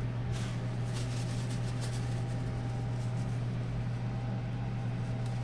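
Steady low electrical hum, even and unchanging, with a few faint light clicks and rustles of handling in the first couple of seconds.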